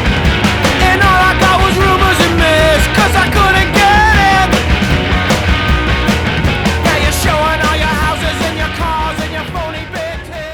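Rock music soundtrack, punk-style, fading out over the last couple of seconds.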